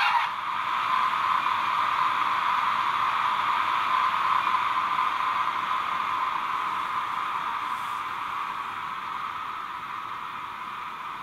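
PIKO H0 model of a PKP EU07 electric locomotive playing its on-board digital sound through its small speaker: a steady rushing running noise that slowly fades as the model comes to a stop.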